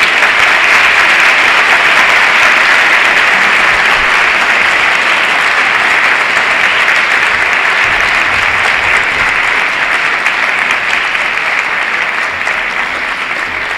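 Large audience applauding steadily, easing off slowly near the end.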